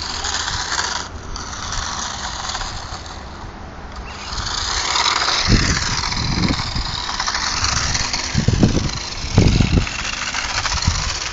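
Toy remote control car's small electric motor whirring, with its plastic wheels rolling on concrete. Several low thumps come in from about five seconds in.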